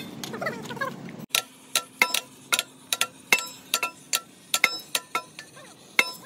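Hammer tapping on a metal part: irregular sharp strikes, about three a second, each leaving a brief metallic ring. A steady low hum cuts off abruptly about a second in, just before the tapping starts.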